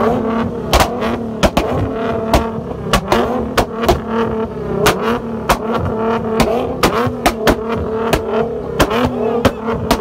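Infiniti G37x sedan's V6 held at steady high revs against a 2-step launch limiter. The exhaust cracks with sharp, uneven bangs, about two a second.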